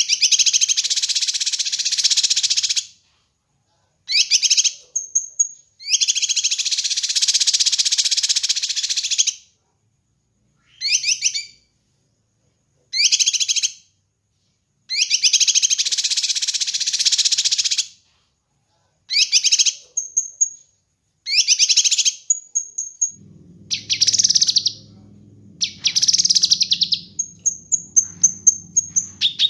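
Kinoi songbird singing: fast high trills lasting a few seconds each, separated by short pauses and brief clear whistled notes, turning to a quick run of repeated notes near the end. A low steady hum comes in about three-quarters of the way through.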